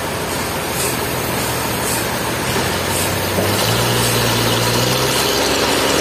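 Toyota forklift's engine running as the machine drives. It picks up a little past halfway, with a higher whine joining.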